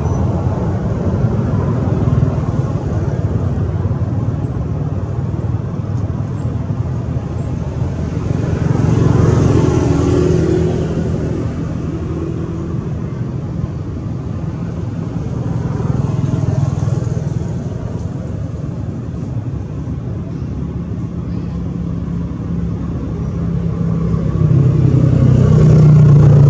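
Motor vehicle engines running and passing by, a steady low drone that swells and fades several times and grows loudest near the end.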